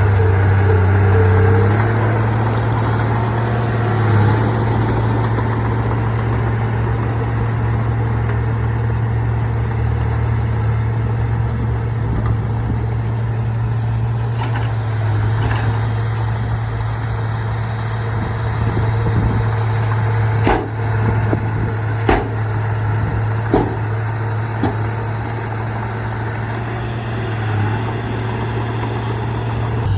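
Bulldozer's diesel engine running steadily at a low, even pitch, with three or four sharp knocks about twenty seconds in.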